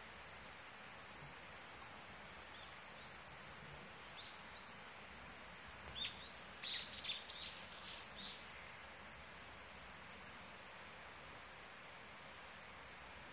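Steady high-pitched drone of insects in the trees, with a quick run of short, downward-sweeping bird calls about six to eight seconds in, the loudest sound here.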